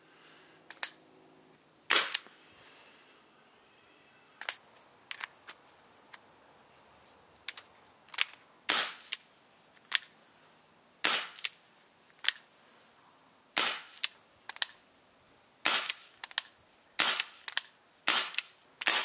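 CO2 airsoft revolver (Elite Force H8R) firing a string of sharp shots, one every second or two, with lighter clicks between them.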